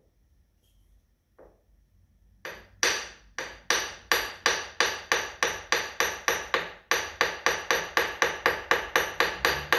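Small hammer tapping a steel milling-machine vise over and over in light, quick taps, about four a second. The taps start about two and a half seconds in, with a short break about seven seconds in. The vise is being knocked square to the table while a dial indicator reads the jaw: tramming the vise.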